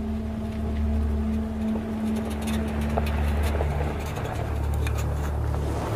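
A steady low rumble, of the kind PANN files under vehicles, under a sustained droning music tone, with a few faint clicks through the middle.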